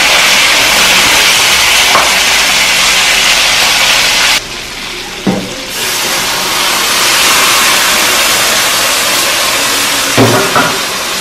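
Pork leg sizzling loudly in a hot aluminium Dutch pot, with a short knock a little past five seconds; warm water poured in from a kettle hisses and steams against the hot pot, and another knock comes near the end.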